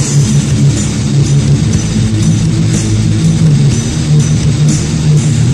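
Heavy metal music: loud, dense distorted electric guitar and bass playing without a break.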